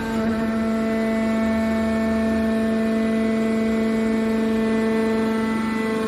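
Hydraulic power unit of a scrap car baler running, giving a steady pitched hum.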